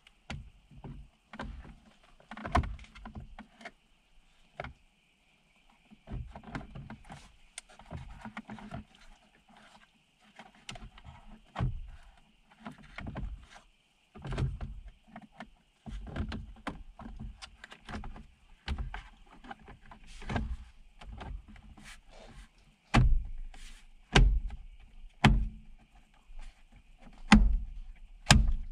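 Hard plastic dashboard trim of a Toyota LandCruiser 70 series being handled and refitted around the centre console: irregular knocks, taps and rustling. In the last few seconds come several louder, sharp knocks as the panel is pressed home into its clips.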